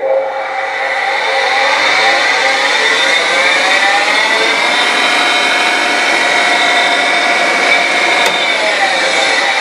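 Surface grinder's spindle motor, run from a VFD, starting up with a whine that rises in pitch over the first two to three seconds as the drive ramps the grinding wheel up to speed, then running steadily. Near the end the drum switch clicks off and the whine begins to fall as the wheel winds down.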